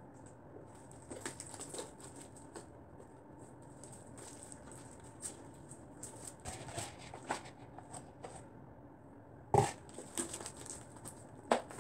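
Floam slime, foam beads in glue slime, being kneaded and squeezed by hand: faint, irregular crunching and crackling, with two louder clicks near the end.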